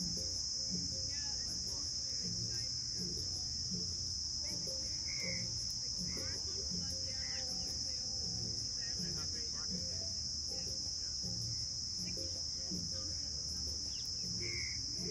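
Steady, high-pitched chorus of insects, a continuous shrill buzz that holds unchanged throughout.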